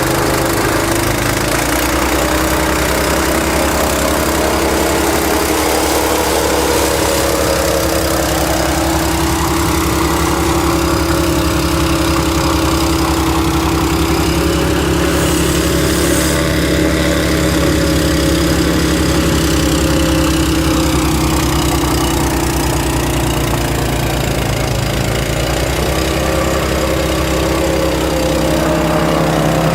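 Snow-clearing machine's engine running steadily at a constant speed, with a slight shift in tone in the middle.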